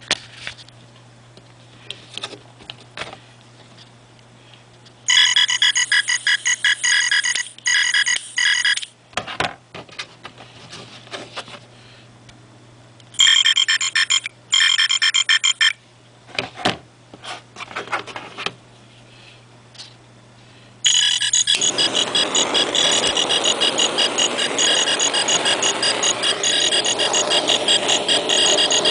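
Novelty frog butane torch lighter's sound chip playing a shrill, rapidly pulsing electronic ringing tone, in two bursts of a few seconds and then a longer run near the end, with clicks of handling between them. A steady hiss joins the last run.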